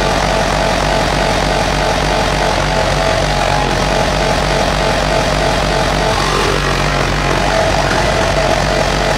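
Club music from the sound system during a DJ set, so loud and distorted on the phone microphone that it comes through as a steady wash of noise with no clear beat.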